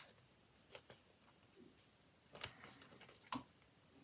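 A few faint, scattered clicks and taps of handling at a fly-tying vise, the sharpest a little over three seconds in.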